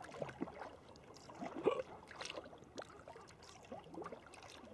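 Kayak paddle strokes on calm sea: the blades dipping and water trickling and dripping off them in small irregular splashes, the loudest about a second and a half in.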